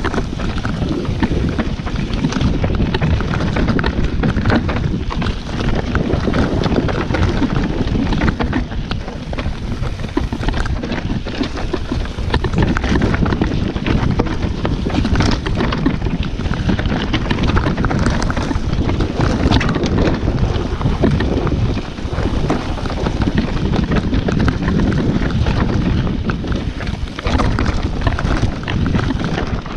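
Full-suspension mountain bike riding fast down a rough, rocky downhill trail: tyres rolling over loose stones and gravel, with constant knocks and rattles from the bike as it hits rocks, and wind rushing over the microphone.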